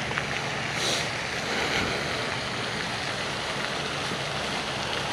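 Steady rushing splash of a pond's spray fountain, with a brief rustle about a second in.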